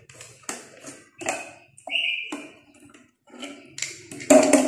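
Clear plastic jar with a red screw cap being handled and unscrewed: a run of small clicks and taps with a couple of short high squeaks about two seconds in, then a louder clatter near the end as the jar is set down on the tile floor.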